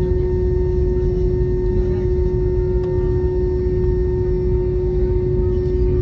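Airliner cabin noise during taxi: a steady low rumble from the jet engines at idle, with a constant droning hum.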